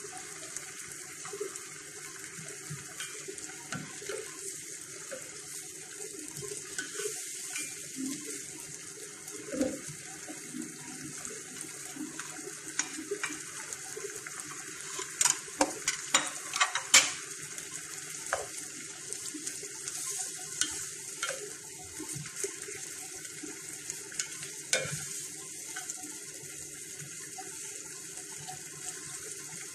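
Food sizzling and simmering in a pan on a gas stove, a steady hiss. It is broken by scattered knocks of a utensil against the pan and a cluster of sharp clatters about halfway through as vegetables go in and are stirred.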